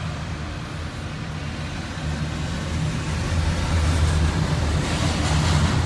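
Steady low rumble of vehicle and rail noise heard from inside a car alongside a passing CSX double-stack container train, growing louder about four seconds in.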